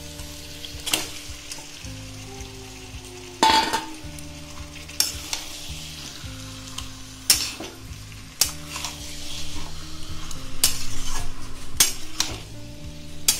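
Marinated chicken pieces sizzling as they go into hot oil with fried onion, capsicum and tomato in a metal kadai. They are stirred with a metal spatula that scrapes and knocks against the pan every second or two. About three and a half seconds in comes one loud metal clank with a short ring.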